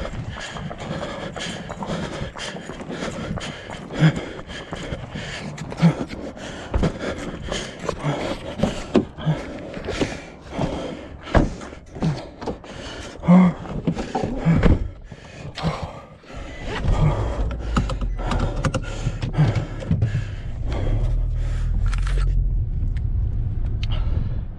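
Hurried footsteps with irregular thumps and rustling for about sixteen seconds, then a steady low rumble takes over.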